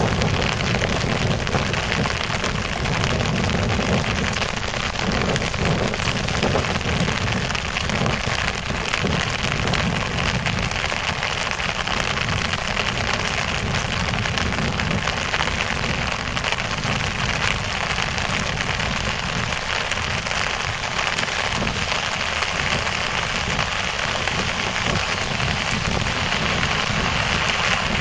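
Heavy rain pattering steadily on a clear plastic bike-umbrella canopy, a dense, even hiss with a low rumble underneath.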